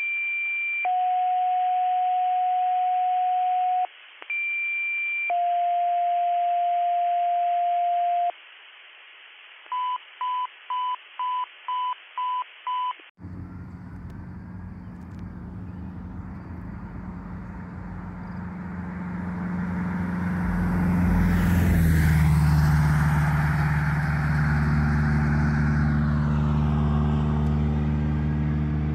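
Two-tone fire dispatch pages over a radio scanner: a short high tone followed by a long lower tone, given twice, then a string of about seven quick alert beeps. After that comes roadside sound: engine noise swells as a vehicle passes, and a siren starts to rise faintly near the end.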